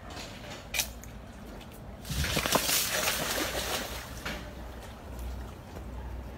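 Crocodiles splashing and churning the water of their pool while being fed, in one loud burst of splashing about two seconds in that lasts about two seconds and then dies down.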